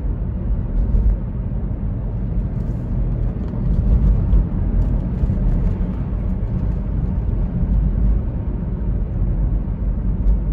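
Steady low rumble of a BMW X3 driving along a road, heard inside the cabin: engine and road noise at an even cruising pace.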